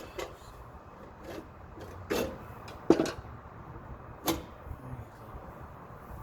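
A few sharp clicks and knocks, the loudest about two, three and four seconds in, as a homemade safety lock on a metal electrical panel board is handled and tested.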